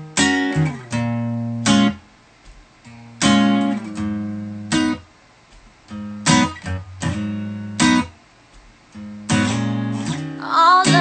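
Acoustic guitar strummed in chords, each strum ringing for a second or so before being stopped short, in an uneven rhythm of single and quick double strokes.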